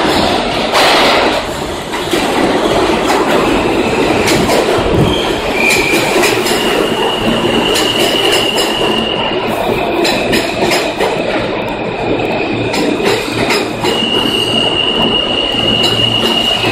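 A J subway train pulling into an underground station and rolling past along the platform. A steady rumble of wheels on rails is broken by rail-joint clicks, and from about five seconds in there are long, high, steady stretches of wheel squeal.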